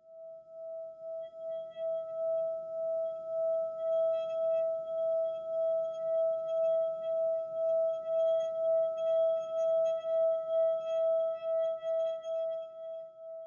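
Singing bowl being played, holding one steady tone with a faint higher overtone; its loudness wobbles in even pulses about three times a second.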